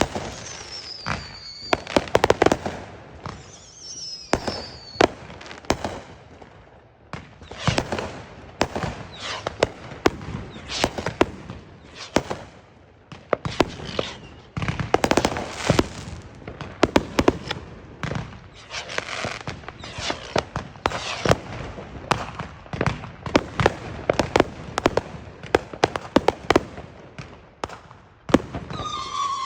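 Consumer fireworks going off in quick succession: sharp bangs and crackling bursts throughout, with two falling whistles in the first few seconds.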